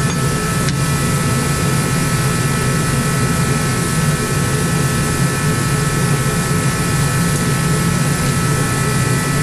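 A machine running steadily in the background: an even rushing drone with several faint, steady whining tones above it.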